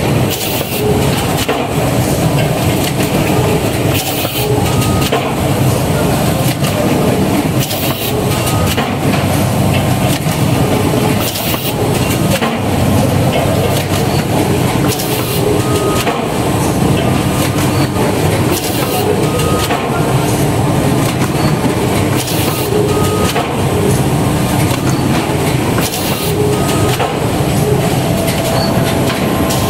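CMD 540 automatic hardcover case-making machine running: a steady mechanical clatter of rollers and moving parts, with a sharp clack about every three to four seconds.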